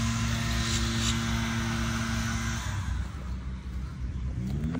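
A steady engine hum over a low rumble, which cuts off a little past halfway; near the end a second engine note rises in pitch.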